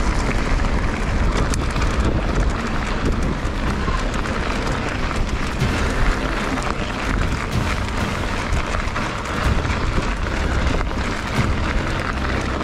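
Wind buffeting the microphone of a camera on a moving mountain bike, with the steady rumble and rattle of the bike's tyres and frame on a gravel dirt track.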